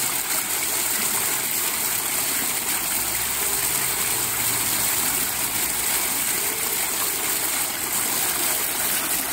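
Decorative wall fountain running: a steady rush of a thin sheet of water falling down the wall, with a row of small jets splashing into it.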